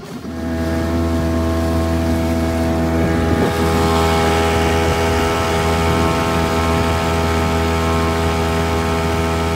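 Small boat's motor picks up speed about a third of a second in, then runs steadily under way with an even drone.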